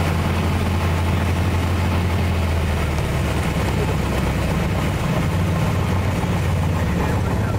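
Piper PA-28-181's four-cylinder Lycoming O-360 engine and propeller droning steadily, heard inside the cabin at low power; the engine note shifts slightly about three seconds in.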